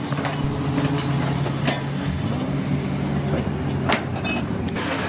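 A car engine idling steadily, with a few sharp clicks and knocks over it.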